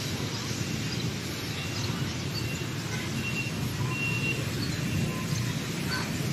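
Steady low rumble of city traffic, with a few short high bird chirps near the middle.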